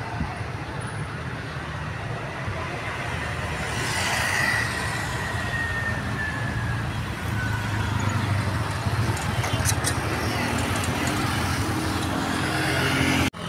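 Bus engines and road traffic running steadily, swelling a little as vehicles pass, with a faint high tone sliding down about four seconds in. The sound cuts off abruptly just before the end.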